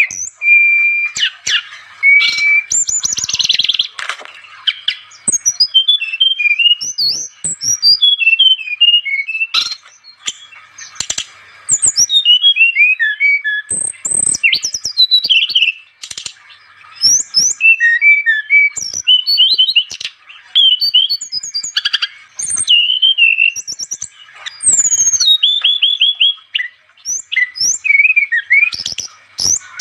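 An SRDC songbird singing hard and continuously: fast phrases of high sweeping whistles, chirps and trills, broken by short pauses. A faint steady high hum runs behind the song.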